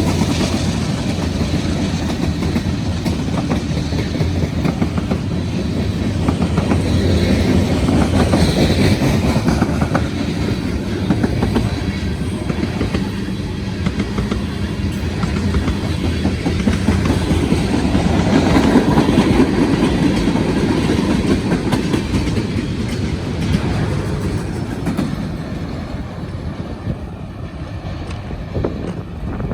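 Norfolk Southern freight train rolling past, its wheels clacking steadily over the rail joints. The sound fades away near the end.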